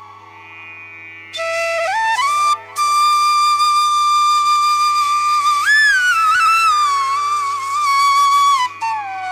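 Background music: a slow solo melody of long held notes that slide between pitches. It comes in about a second in after a quiet start.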